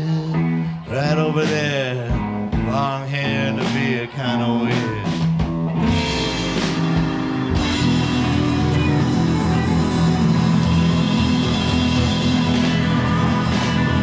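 Live rock band: singing with long, sliding notes over guitar for the first few seconds, then the full band with guitar, bass and drums comes in about six seconds in and plays on steadily.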